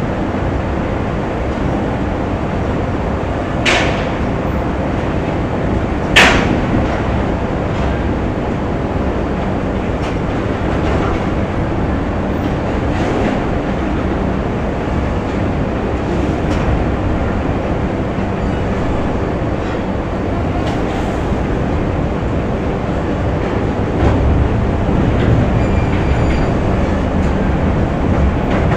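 Factory ambience: a steady rumble and hum of machinery with scattered faint clicks. Two sharp, loud bangs come a few seconds in, and the low rumble grows louder near the end.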